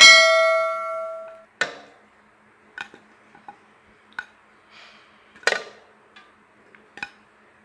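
A metal pressure cooker pot is knocked and rings clearly, the ring dying away over about a second and a half. After it come a few scattered light knocks and clicks as onion slices are set into the pot by hand.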